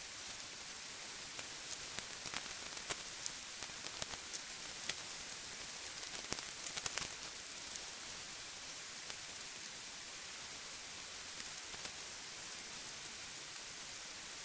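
Steady rushing hiss of a stream, with scattered light clicks and rustles of a tent groundsheet being handled and folded, most of them in the first half.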